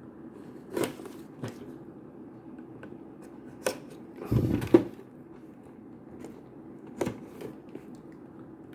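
Cardboard figure box being handled: a few scattered sharp taps and rustles, with a longer, louder rustle about four and a half seconds in.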